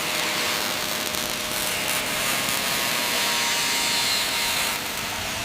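Power grinder working a steel seam: a steady, hissing grind with a faint whine under it.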